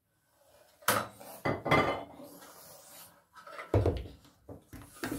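Kitchen clatter of a metal tablespoon knocking against a mixing bowl and the worktop: several separate sharp knocks, the loudest about a second in and near four seconds.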